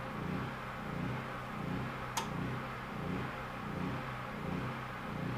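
Low machine hum from running power equipment, wavering with a regular wobble, with a single sharp click about two seconds in.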